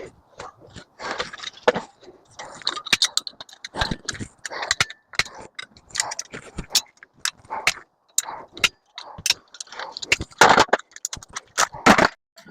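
Irregular metallic clinks, taps and scrapes of hand tools working loose parts of a scrapped microwave oven to free its copper-bearing pieces.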